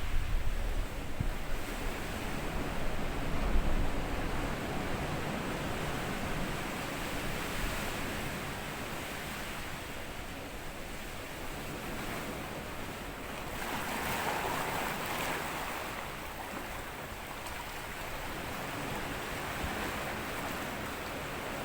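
Small sea waves washing up over a sandy beach as a steady hiss, with one louder wash about two-thirds of the way through. Low wind buffeting on the microphone in the first few seconds.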